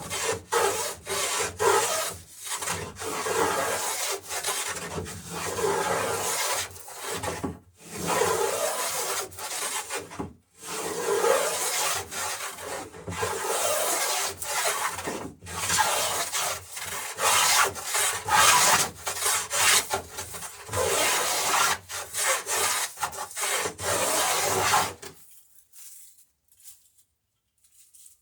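Repeated strokes of a hand tool shaving wood, cutting the bevelled land along the edge of a wooden boat plank. The strokes stop near the end.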